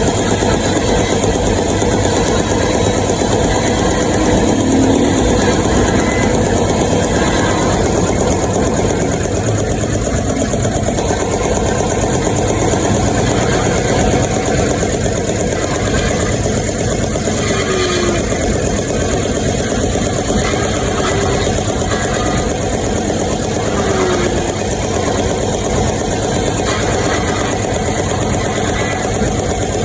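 Electric key cutting machine's motor running steadily while a duplicate gate key is cut.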